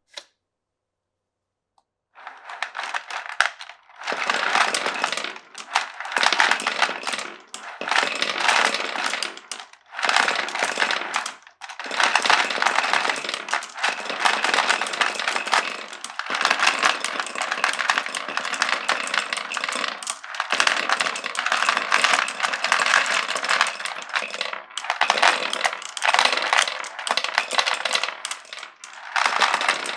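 Many marbles rolling and clattering down a wooden marble run, a dense rattle of small knocks on wood and track. It starts about two seconds in after a single click and comes in long stretches broken by brief lulls.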